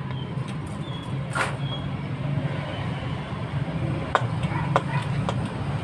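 A few light plastic clicks and knocks as a car's blower motor assembly is handled and turned over in the hands, the sharpest a little over a second in, over a steady low rumble.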